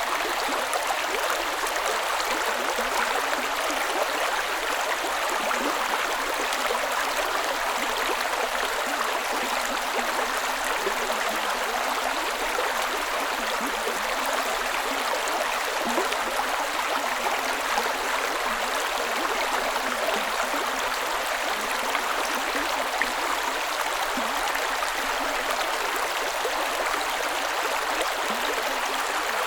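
A creek running over rocks: steady, dense rushing and burbling water.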